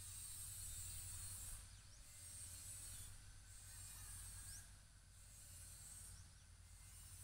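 Faint high-pitched insect buzzing that swells and fades about every one and a half seconds, over a low steady rumble.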